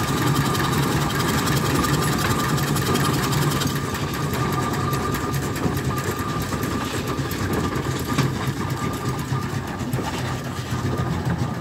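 Burrell steam traction engine running under way: a fast, even beat from its engine and motion.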